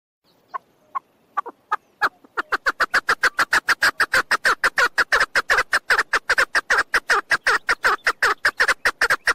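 Female chukar partridge calling: a few spaced notes, then about two seconds in a fast, even run of short chuck notes, about six a second, each dropping in pitch.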